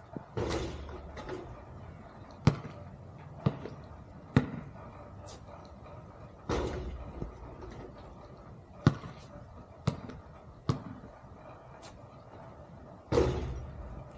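A basketball bouncing on an outdoor court, with single sharp bounces every second or so. Three longer, louder hits with a short ring-out come about a second in, midway and near the end.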